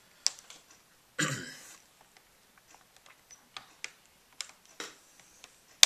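Plastic retaining clips of a Dell Inspiron N4010's screen bezel coming undone as the bezel is pried off by hand: scattered small clicks, with a short rustle about a second in and one sharp, loud snap at the end.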